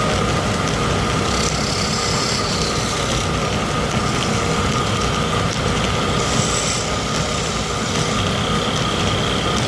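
Wood lathe running steadily with a constant hum and whine, with short hissing scrapes against the spinning wood about a second and a half in and again after six seconds.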